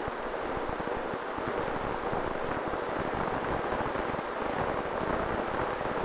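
Tek-Sumo RC plane in flight, heard from its onboard camera: a steady rush of wind over the microphone with a faint, even motor tone underneath, growing slightly louder near the end.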